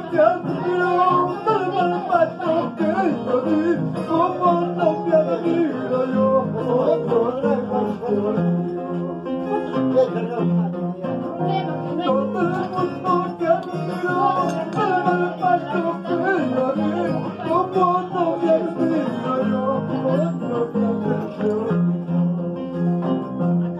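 Andean harp being plucked, its bass notes repeating under the melody, with a voice singing along.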